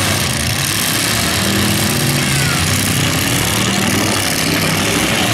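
Demolition derby car engines running loud, their note shifting as the drivers rev and push through the dirt arena.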